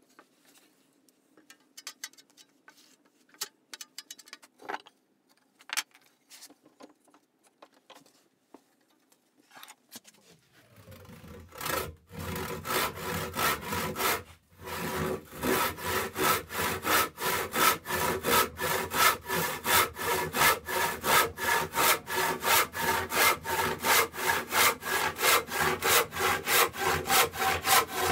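Sandvik crosscut handsaw cutting across a softwood board in steady, evenly spaced strokes, with one short break soon after the cut starts. Before it, about ten seconds of faint taps and rubbing.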